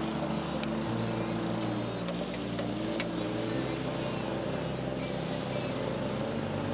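A small engine running steadily in the background, with a few sharp clicks over it.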